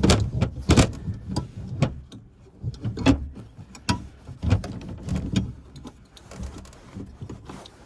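Irregular knocks, clicks and rattles of hands fitting a condenser fan motor into its mount in a package heat pump and working its wire leads around it.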